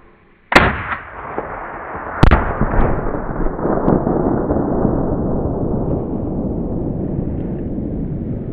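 Rifle-detonated Tannerite target blast: two sharp cracks nearly two seconds apart, the first about half a second in. A long rolling rumble follows and slowly fades.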